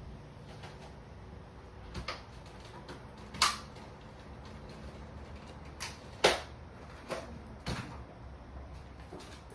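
A few sharp knocks and clicks at irregular intervals, two of them much louder than the rest, over a low steady background.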